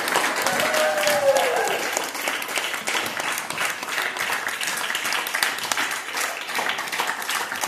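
Audience applauding steadily, with one brief cheer rising and falling about half a second in.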